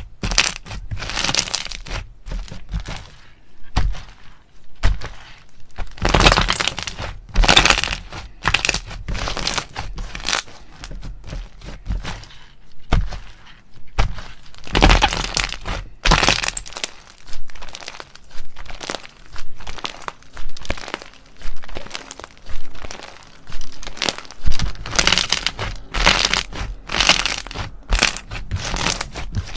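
Slime being squeezed and worked by hand, giving irregular bursts of sharp crackling clicks, each up to about a second long with quieter gaps between.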